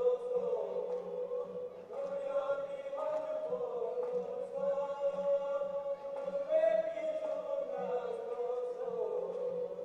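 A group of men chanting a Balti folk song in unison, in long held phrases that glide slowly up and down in pitch, with hand clapping.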